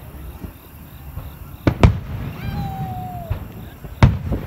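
Aerial fireworks shells bursting: two sharp bangs close together just under two seconds in and another near the end, with a brief high whine between them.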